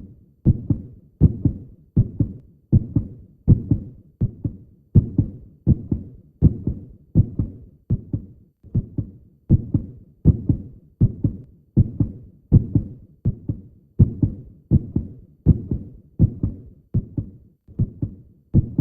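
Heartbeat sound: a steady lub-dub of low paired thumps, a little over one beat a second.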